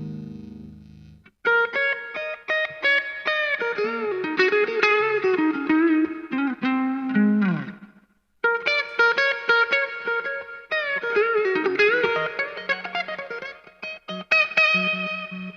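Jcraft T-1 Telecaster with Fleor Alnico V pickups, played through a Vox VT20X amplifier: a single-note lead line with string bends. It comes in two phrases, broken by a short pause about eight seconds in.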